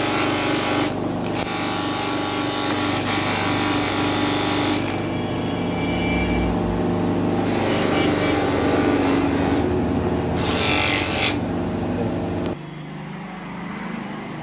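Sewing machine running steadily at speed, a continuous mechanical hum and whir, that stops about twelve seconds in.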